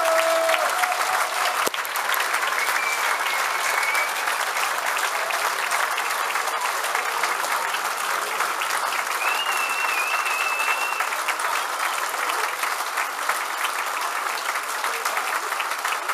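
Large crowd applauding: many hands clapping steadily and without a break.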